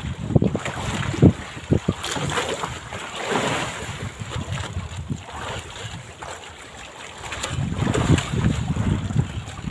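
A wet gill net being hauled by hand over a small boat's side, water splashing and dripping off it, with a few sharp knocks early on and wind buffeting the microphone.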